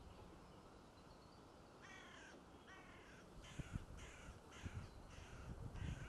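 A crow cawing in a run of about seven short, harsh caws, starting about two seconds in, over a low rumble of wind.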